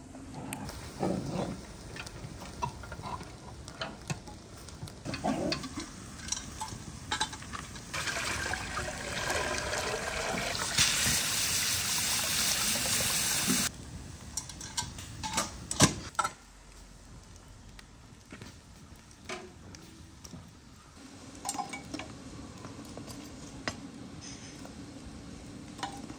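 Clinks and knocks of aluminium cooking pots and lids, with a steady rush of water that builds about a third of the way in and cuts off abruptly a little past halfway.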